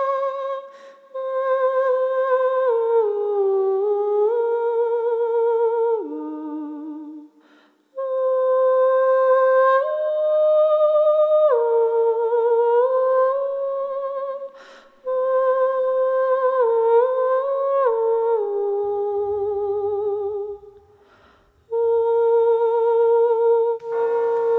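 A single high voice humming a slow, wordless melody with vibrato, in long phrases broken by short pauses for breath. Just at the end, lower musical tones join beneath it.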